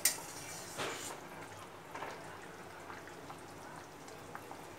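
Sour mango broth simmering in a metal wok with faint, steady bubbling. A utensil clinks against the pan at the start and gives a brief stir about a second in.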